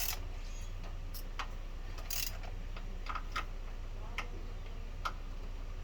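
Socket ratchet clicking in short, irregular bursts while tightening the 15 mm idler pulley bolt, which is very tight. A steady low hum sits underneath.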